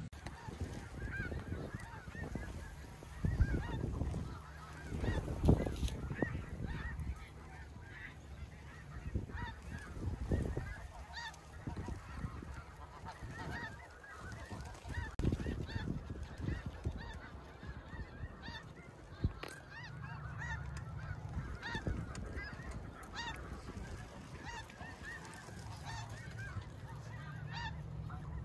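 A large flock of snow geese calling, many short high yelping honks overlapping without a break. Low rumbles and a few bumps, wind and handling on the microphone, lie underneath.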